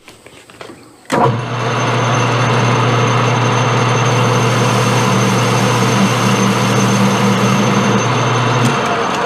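Metal lathe running steadily: a low motor hum under a dense mechanical noise with a faint high whine. It starts abruptly about a second in, and the low hum drops away near the end.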